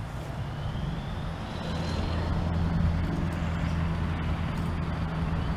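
Motor vehicle engine running, a steady low hum that grows louder over the first three seconds and then holds.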